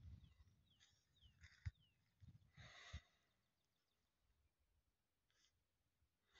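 Near silence in open countryside, with a few faint, brief sounds and two soft low bumps in the first half.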